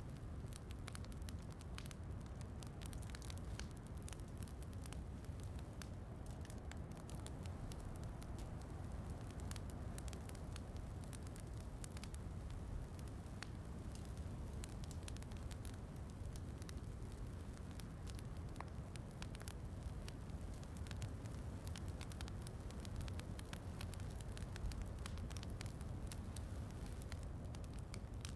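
Wood fire crackling in a fireplace: many small sharp pops and snaps scattered irregularly over a steady low rumble, with rain blended in.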